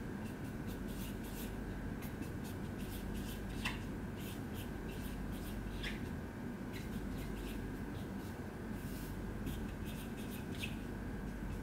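Marker pen writing on a whiteboard: a run of short, scratchy strokes over a steady low background hum.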